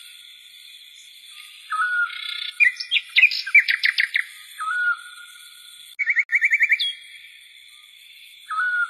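Birds calling: a short whistled note repeated every few seconds, a burst of chirps about three seconds in, and a quick trill of about eight notes near the seven-second mark, over a steady high-pitched background.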